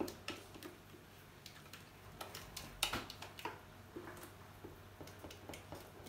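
Spatula scraping and tapping against the inside of a stainless-steel Thermomix jug as thick pastry cream is scooped out into a bowl: an uneven run of light clicks and scrapes, the sharpest about three seconds in.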